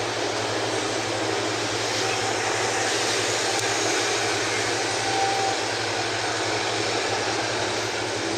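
Jet engines of a Cargolux Boeing 747 freighter rolling on the runway: a steady, even rush of engine noise with a low hum underneath.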